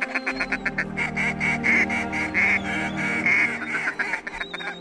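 Duck call blown in a fast run of short quacking notes, calling to mallards.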